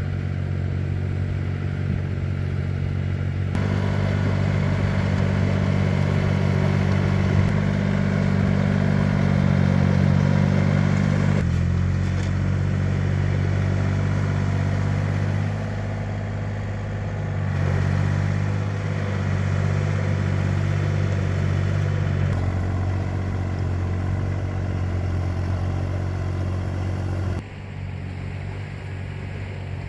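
Engine of a two-wheel walking tractor running steadily, its pitch and loudness shifting abruptly about four times.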